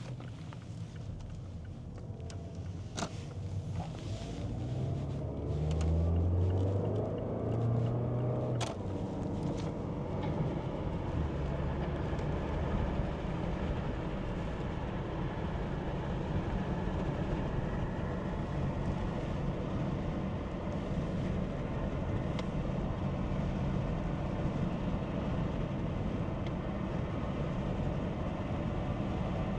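A car's engine and road noise heard from inside the cabin while driving. A few seconds in, the engine note climbs in steps as the car picks up speed, with a couple of sharp clicks. After that comes a steady rumble of tyres and engine at cruising speed.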